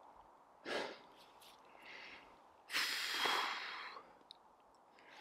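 A person breathing close to the microphone: a short sharp breath just under a second in, then a longer exhale through pursed lips lasting about a second.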